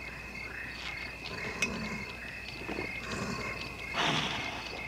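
Crickets chirping steadily, with faint low grunts from the Hulk and, about four seconds in, a short, louder growl as he takes the glass bottle to his mouth.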